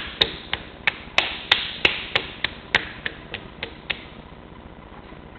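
Hands slapping a large lump of wet stoneware clay on a potter's wheel head, patting it into a mound, about three slaps a second. The slaps grow softer and stop about four seconds in.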